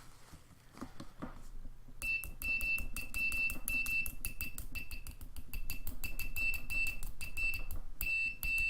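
Neoteck NTK017 digital multimeter's continuity buzzer beeping: a single high tone that starts about two seconds in and cuts on and off in uneven stretches as the test probes make and break contact, over rapid light clicks.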